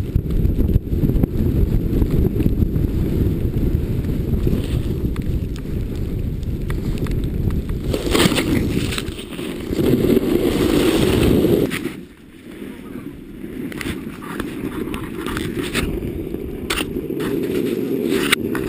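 Wind rushing over the microphone of a pole-held action camera while a snowboard slides through deep powder, a loud rumbling hiss with scattered ticks. It swells for a few seconds, then drops sharply about twelve seconds in before building again.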